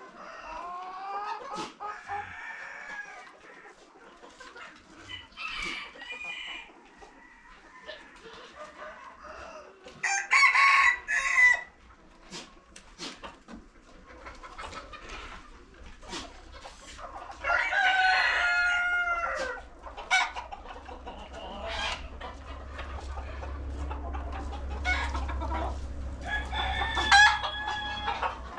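Chickens clucking, with a rooster crowing three times: about ten seconds in, around eighteen seconds, and near the end.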